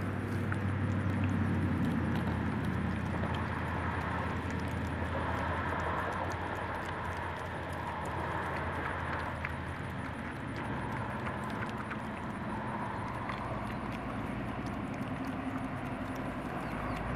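Piglets chewing and rooting through grass close by, with many small smacking clicks and snuffling, over a steady low hum.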